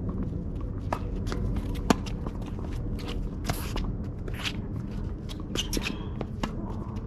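Tennis rally on a hard court: sharp pops of the ball off racket strings and the court, two loud ones about a second apart in the first two seconds, with the player's shoes shuffling and scuffing on the court surface.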